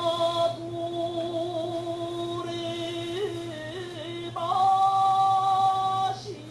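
Singing in long held notes: one steady note for about four seconds, then a higher, louder note from about four and a half seconds in that breaks off shortly before the end.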